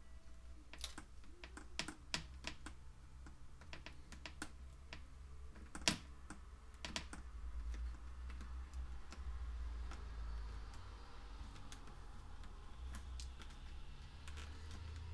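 Irregular small clicks and taps from hands pressing a strip of butyl rubber sealant into the channel of a plastic headlight housing, the sharpest click about six seconds in. A soft rubbing hiss joins in during the second half.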